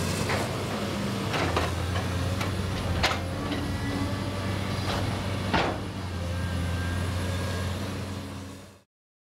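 Caterpillar 325 tracked excavator's diesel engine running steadily as it breaks up a concrete-block building, with sharp knocks of block and debris about a second and a half in, at three seconds, and twice between five and six seconds. The sound fades out near the end.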